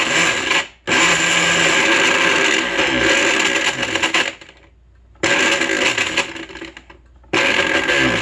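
Countertop blender pulsed on and off while chopping fruit chunks with juice and water: a short burst, then three runs of a few seconds each with brief stops between them.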